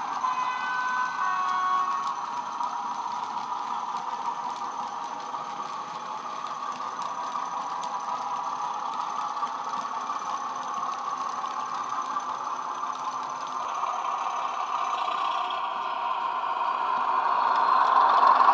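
Sound-fitted Bachmann Class 31 model locomotive playing a Class 31 diesel engine sound from its DCC sound decoder through upgraded speakers, running steadily and growing louder near the end as the loco approaches. The first two seconds carry a two-note horn.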